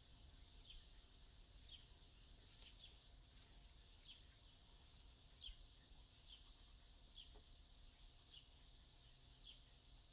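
Near silence, with a faint bird chirping steadily, a short falling note about once a second.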